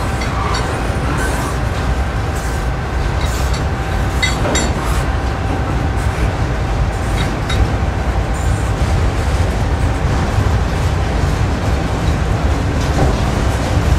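Norfolk Southern freight train's cars rolling past: a steady rumble of steel wheels on rail, with scattered clicks of wheels over rail joints. A thin steady tone runs along with it and fades out about ten seconds in.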